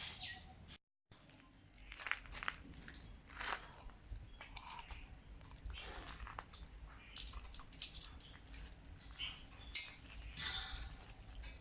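Irregular scraping, crunching and light clicking from hand work on a rusty dish rack, broken by a moment of dead silence about a second in.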